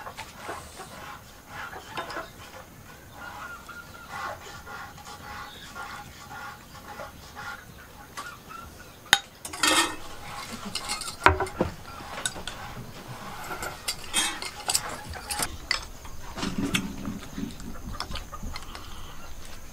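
Metal ladle and spoon clinking and scraping against enamel and ceramic bowls as dessert is dished out, with a couple of sharper knocks about halfway through.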